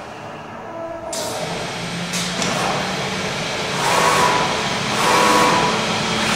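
Zünd G3 digital flatbed cutter at work, its gantry and cutting head travelling across the table: a steady mechanical whir and hiss that grows louder about a second in, with brief whining tones as the head moves.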